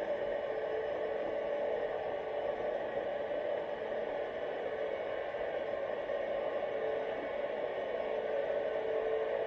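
Steady, muffled underwater hiss picked up by a GoPro sealed in its waterproof housing, with a faint steady hum and no distinct events.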